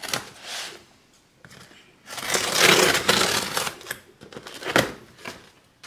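Scissor blade slitting the packing tape along a cardboard box's seam: a short scrape, then a louder ripping stretch of about two seconds, and a sharp click about five seconds in.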